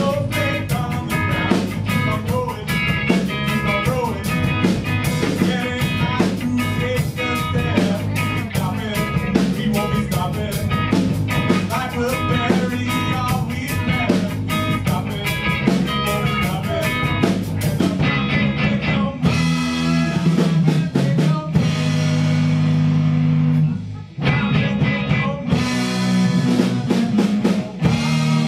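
Live rock band playing guitar and drum kit. About two-thirds of the way in, the drums thin out and sustained chords ring on. Near the end the drums come back in.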